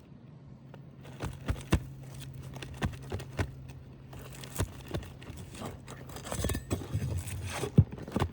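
Irregular clicks, scrapes and knocks of a tool prying at asphalt shingles and their nails, with a sharper knock near the end, over a steady low hum.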